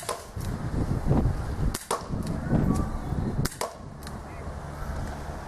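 CO2 BB revolver (Dan Wesson .357 replica) firing, three sharp shots about a second and a half apart, the last rounds in its six-shot cylinder.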